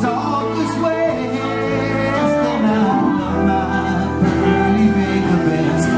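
Live band playing music on acoustic and electric guitars and drums.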